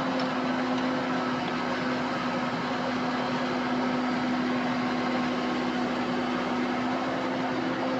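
Excavator engine running at a steady speed: a constant hum over a steady machine noise.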